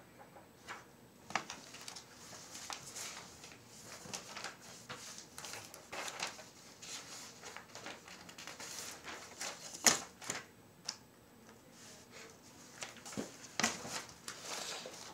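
Computer keyboard being typed on in irregular spurts of light clicks, with a louder knock about ten seconds in.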